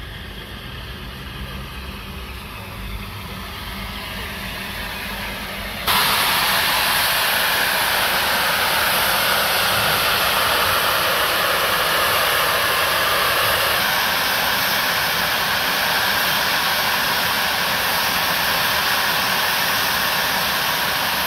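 Steam locomotive 45596 Bahamas, an LMS Jubilee 4-6-0, standing with its safety valves blowing off: a quieter rumble and faint hiss, then about six seconds in a loud, steady rush of escaping steam starts suddenly and holds evenly. A lifting safety valve is the sign of a boiler at full working pressure.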